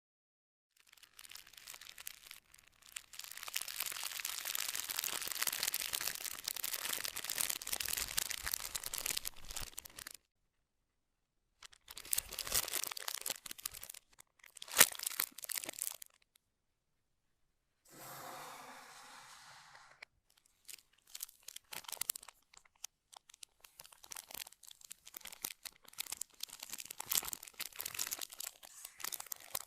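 Keyboard packaging being handled, crinkling, crunching and tearing, in several stretches broken by abrupt dead silences, with one sharp click partway through.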